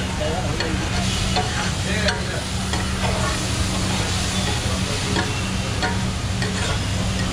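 Rice sizzling on a large flat tawa griddle as a long metal spatula scrapes, stirs and turns it, with scattered clicks of the spatula on the pan. A steady low hum runs underneath.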